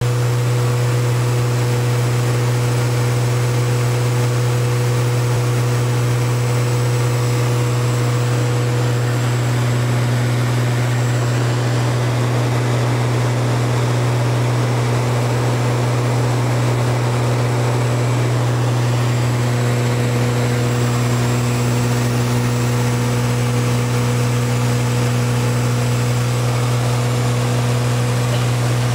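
Beechcraft Baron B55's twin piston engines and propellers droning steadily in flight, heard inside the cabin as a loud, constant low hum with steady tones over it.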